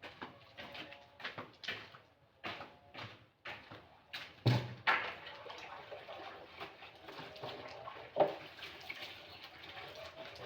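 Clothes being washed by hand in a basin of water: rhythmic sloshing and swishing, with a loud thump about four and a half seconds in.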